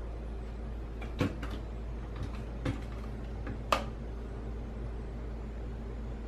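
A few short light knocks and clicks, three of them spread over the first four seconds, over a steady low hum.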